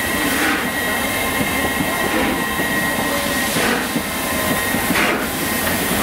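Royal Scot class three-cylinder 4-6-0 steam locomotive 46100 pulling slowly away under steam: a few heavy exhaust beats at uneven intervals over a steady rumble and hiss, with a faint high steady ringing.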